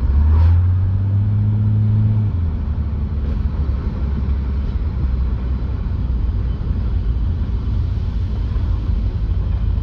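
BMW E30 320i's inline-six engine, fitted with sharper camshafts, running. The engine note is strong and rises slightly for about the first two seconds, then drops back to a steady low rumble.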